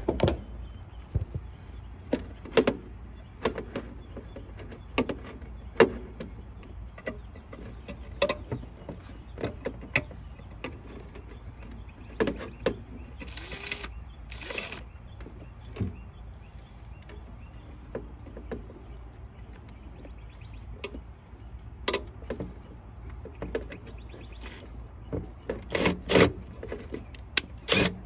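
Hands working the wiring inside a gas-pack HVAC unit's control panel: scattered clicks and knocks of wires, terminals and sheet metal. About halfway through, a cordless driver runs in two short bursts about a second apart.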